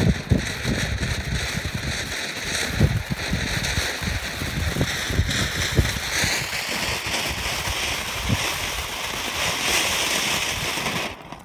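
Fountain firework burning, a steady spraying hiss of sparks that changes pitch about six seconds in and stops abruptly near the end. Wind buffets the microphone underneath.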